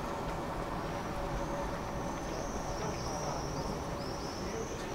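Tram running along the track: a steady rumble with a thin high whine that wavers up and down in pitch.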